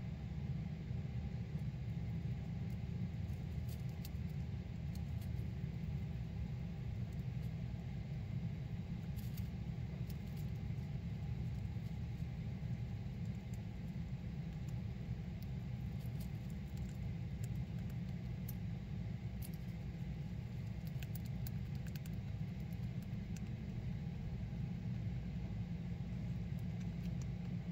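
A steady low rumble, with faint scattered clicks of a hamster gnawing a wooden chew stick.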